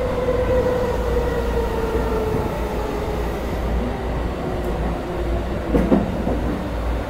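Cabin sound of an E217 series electric train slowing into a station: the traction motors' whine falls slowly in pitch under braking over a steady rumble of wheels on rail, with a single knock about six seconds in.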